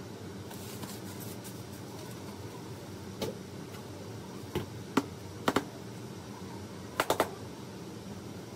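A steady low hum with a run of sharp clicks and taps starting about three seconds in: single clicks, then a quick pair, then a quick triple near the end.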